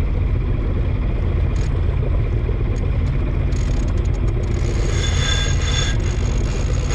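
Sailboat's inboard engine running steadily under way, a low rumble. From about three and a half seconds in there are clicks, then a high squeal, from deck gear as a crewman works a line at the mast.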